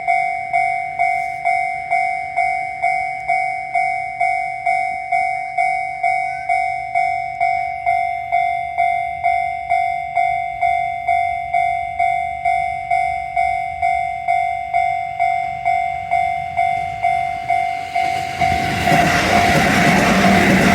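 Japanese level-crossing alarm ringing steadily at about two strikes a second. Near the end a Shin-Keisei Line train arrives at the crossing, its running noise swelling over the alarm.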